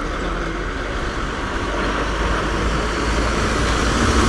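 Red MSRTC state transport bus approaching on a village road, its diesel engine rumble and road noise growing steadily louder as it nears.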